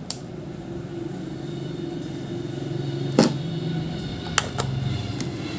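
Several sharp clicks and taps from a USB charging cable being handled, the loudest about three seconds in and a quick pair about a second later, over a steady low background hum.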